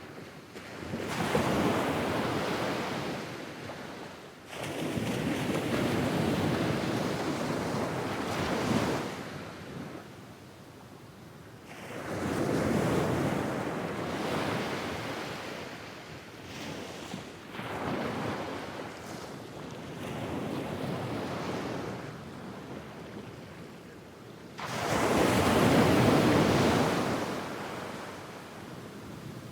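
Medium waves breaking and washing up onto a sand beach in a regular rhythm, each wave swelling and then hissing away over a few seconds, about six in all, the loudest near the end.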